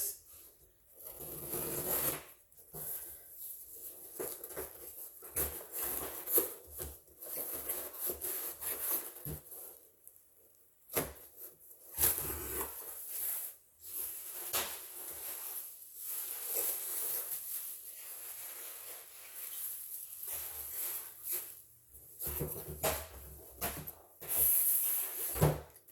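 A shipping box being opened and its packing handled: irregular rustling and scraping with a few sharp clicks and knocks.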